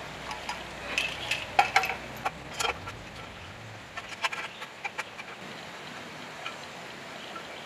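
Light metallic clicks and clinks as a sheet-metal gauge panel box is handled and fitted onto the generator engine's bracket. The taps come quickly over the first five seconds, then only a couple of faint ones.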